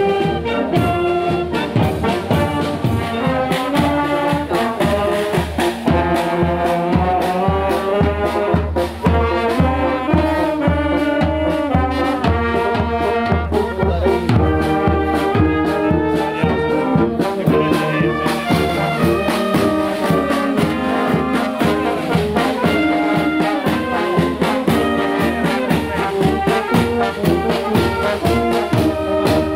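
Marching brass band playing a march: trumpets, trombones and tubas carry the tune over a steady drum beat.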